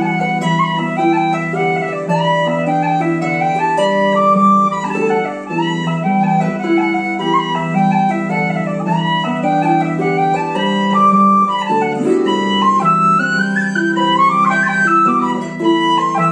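Irish folk music: a tin whistle plays a quick melody of short running notes over a Celtic harp accompaniment.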